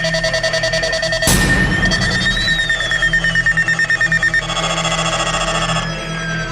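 Several electronic alarm tones beeping in rapid, even pulses over one another. A sudden bang comes about a second in, and one tone rises briefly and then slides steadily downward.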